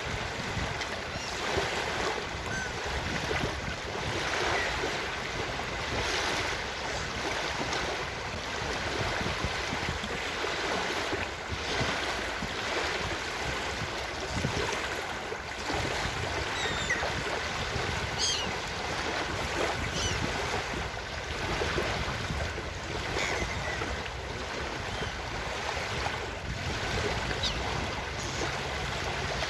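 Ocean waves washing steadily onto a beach, with short gull cries scattered over the surf.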